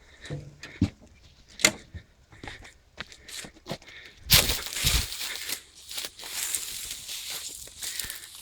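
Irregular scuffing and crunching footsteps through dry ground cover. About four seconds in there is a loud rustle, which runs on as a steady crackling hiss.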